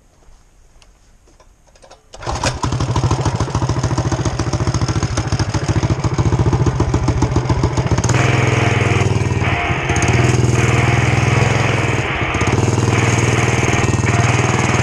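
A mini bike's small engine starts abruptly about two seconds in and runs with a rapid, even firing beat. From about eight seconds in it runs harder as the bike rides off, with a few brief dips in the sound.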